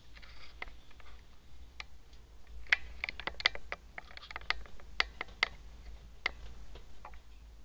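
Irregular sharp clicks and taps, thickest in the middle: a kitten's claws and paws on the wooden top of a cabinet.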